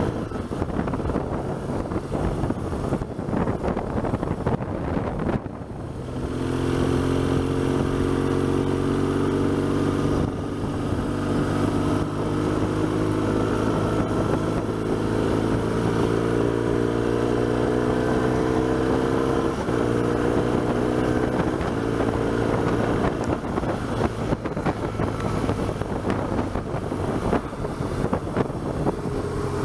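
BMW R1200GS boxer-twin engine running under way, with rushing wind noise. About six seconds in, its steady note comes up clearly above the wind, drifting slowly in pitch with brief breaks around ten and twenty seconds in. It sinks back into the wind after about twenty-three seconds.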